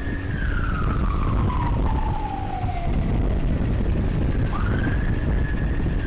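Electronic emergency siren wailing. The pitch climbs quickly, holds high, then falls slowly, and a second climb comes about four and a half seconds in. Steady low road and wind rumble runs underneath.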